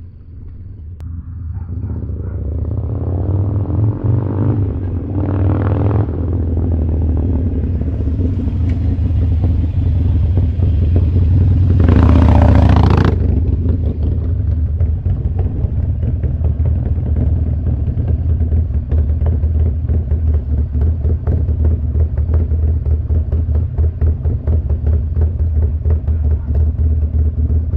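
Harley-Davidson Sportster Roadster's air-cooled V-twin running through a Vance & Hines 2-into-1 Upsweep exhaust, with a deep, hard-hitting note. It idles with a lumpy pulse and is revved twice, briefly about five seconds in and harder about twelve seconds in.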